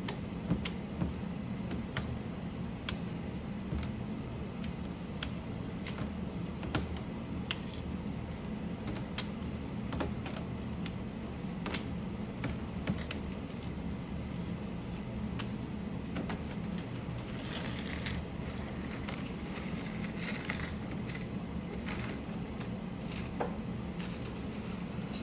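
Irregular clicks and clatter of small plastic mechanical-keyboard parts (keycaps and switches) being handled, pulled and set down, with a denser patch of rattling in the second half. A steady low hum runs underneath.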